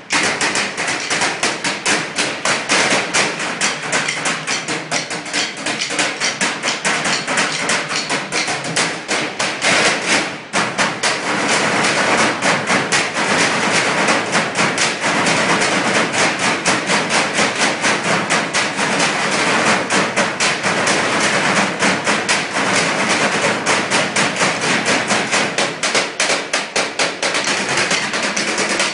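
A percussion ensemble drumming with sticks on galvanized metal trash cans: a fast, continuous rhythm of sharp metallic strikes, with a brief break about ten seconds in.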